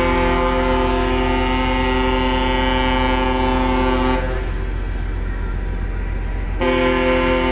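Ship's horn sounding two long, steady blasts: the first ends about four seconds in, and the second starts about two seconds later. Each blast is a deep tone of several pitches sounding together, over a low engine rumble.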